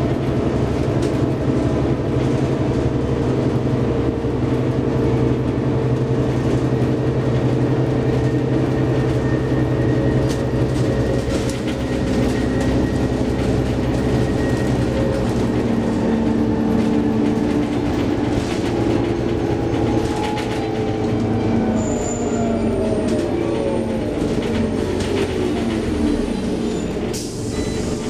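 Scania OmniCity city bus running, heard from inside the passenger cabin: a steady engine and driveline hum with light interior rattles. In the last third a whine glides down in pitch as the bus slows.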